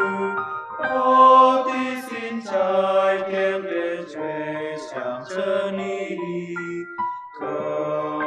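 Mixed choir singing a Mandarin Christian song in parts, with held notes and short breaks between phrases about half a second in and about seven seconds in.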